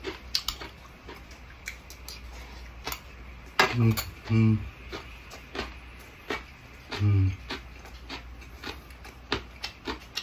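A person eating a spoonful of rice mixed with squash, cucumber and beet side dishes: small clicks of chewing and of a spoon against a bowl, with three short low 'mm' hums of approval, two close together near the middle and one a few seconds later.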